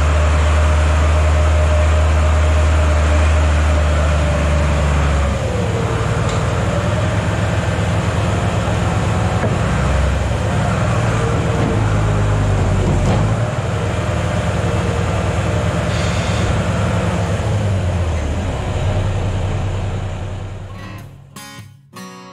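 Heavy vehicle engine running, with its note shifting as the load changes about five seconds in and a whine that wavers up and down. Near the end it fades out and acoustic guitar music comes in.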